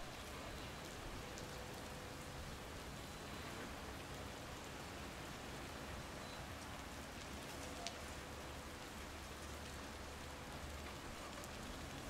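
Steady rain falling on the ground, an even hiss, with one sharp tick about eight seconds in.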